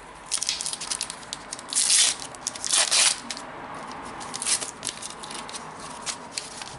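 Crinkling and tearing of a Panini Adrenalyn XL trading-card pack wrapper as it is ripped open, with the two loudest tears about two and three seconds in.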